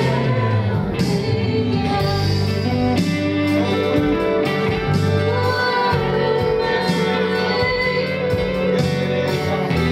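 Live praise-and-worship band music: a steady beat under sustained guitar and keyboard chords, with singing over it.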